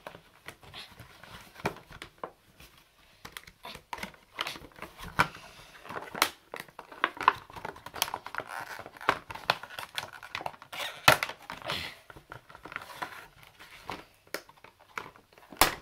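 Stiff clear plastic toy blister packaging with a cardboard backing crinkling and crackling as it is pried and torn open by hand, with many irregular sharp cracks.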